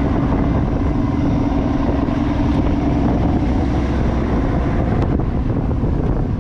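A fishing boat's engine running steadily: a constant low hum with a steady tone, under wind noise on the microphone.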